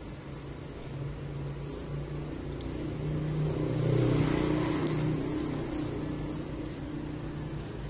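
An electric fan runs throughout, a steady low hum with wind rumbling on the microphone that swells about four seconds in, and small clicks of copper wire leads being handled.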